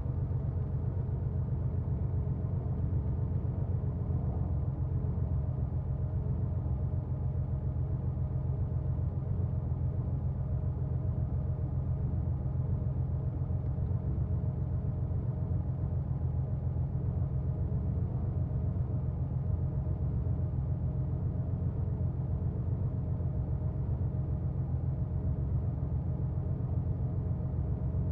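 A 1990 Porsche 911's air-cooled flat-six engine running steadily with a deep, unchanging low rumble, holding the same pitch throughout with no revs or gear changes.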